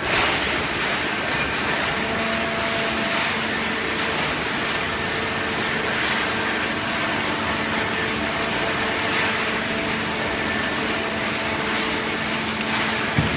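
Hydraulic baling press running: the steady hum and whine of its motor and hydraulic pump, with a single sharp knock near the end.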